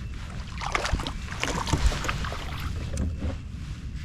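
Water splashing and sloshing around a kayak while a hooked bass is played on the line, with wind rumbling on the microphone and two low knocks about one and two seconds in.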